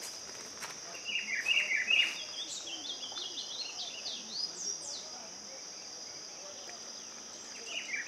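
An ultramarine grosbeak (azulão) sings short phrases of falling whistled notes, about a second in and again near the end, with thinner high chirps between. Under it runs a steady high insect drone, which the on-screen caption calls the mandaguari's song.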